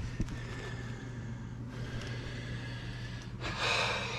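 A man breathing out hard once, a short breathy rush about three and a half seconds in, over a steady low hum.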